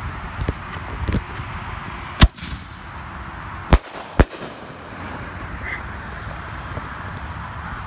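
Consumer aerial firework shell: a few small pops, then a very loud sharp bang a little over two seconds in, followed about a second and a half later by two more loud bangs half a second apart. This fits a double-break ball shell, the Texas Outlaw Double Blast, bursting twice.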